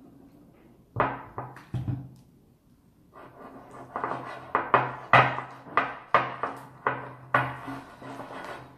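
Slime being stirred with a spatula in a glass bowl: a few sharp strokes at first, then a quick run of them about two or three a second. The stirring mixes freshly added borax activator into the slime.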